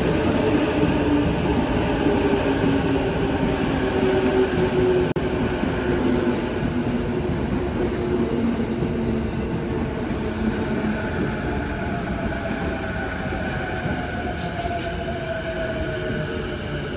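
JR East E233 series Chuo Line electric train pulling along the platform, its traction motors whining in several tones that fall slowly in pitch as it brakes, over the rumble of the wheels on the rails.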